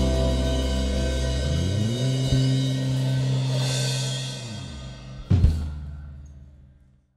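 An indie band's song ending: held chords ringing with cymbals and sliding in pitch as they fade, one last sharp drum-and-cymbal hit a little after five seconds in, then the sound dies away to silence.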